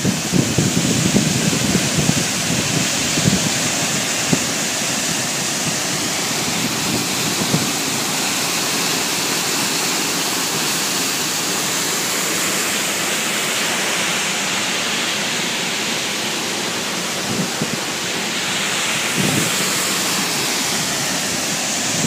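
Chitrakoot Falls, the Indravati River's broad waterfall, giving a steady, loud rush of falling water.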